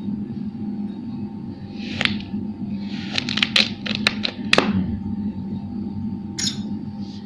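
Kinetic sand being cut and pressed, giving crisp crackling clicks: one about two seconds in, a quick cluster a second later, and one more near the end.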